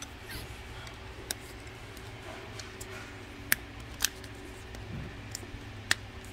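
Sharp plastic clicks and knocks as a heat-softened plastic vacuum shroud is pressed and snapped onto an air sander's housing by hand, three louder clicks standing out about three and a half, four and six seconds in, over a faint steady hum.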